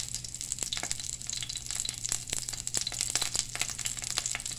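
Olive oil sizzling in a saucepan around two whole brown anoles being pan-fried: a steady hiss with many irregular small pops and crackles.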